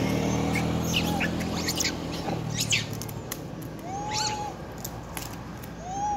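Macaques squeaking with short high calls, with two short arching calls about four and six seconds in. A low steady drone underneath fades out after about three seconds.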